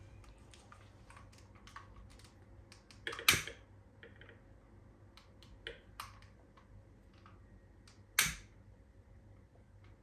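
Long-nozzle candle lighter clicking sharply twice, about five seconds apart, as it lights candles, with faint small ticks of handling between.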